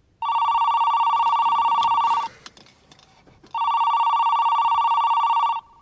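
Phone ringing on an outgoing call: two warbling electronic rings of about two seconds each, with a gap of just over a second between them.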